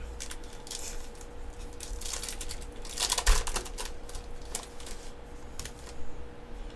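Yu-Gi-Oh trading cards being flipped through and slid against one another by hand: an uneven run of light clicks and rustles, busiest about three seconds in. A faint steady hum lies underneath.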